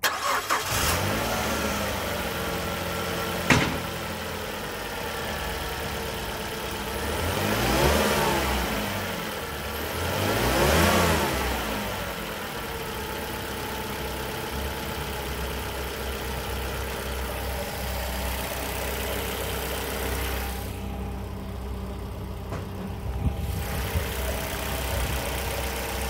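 2004 Mazda 6's DOHC 16-valve four-cylinder engine starting, then idling steadily. It is revved up and let fall back twice, about 8 and 11 seconds in, then settles back to idle.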